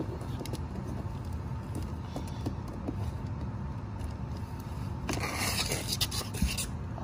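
Handling noise of a plastic-cased comic book: a steady low rumble with a few faint clicks, then about five seconds in a burst of plastic scraping and crinkling lasting over a second.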